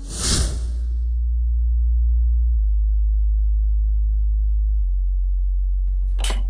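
Film sound design: a swoosh-like hit in the first second, then a deep, steady bass drone. Near the end comes a brief sharp crackle.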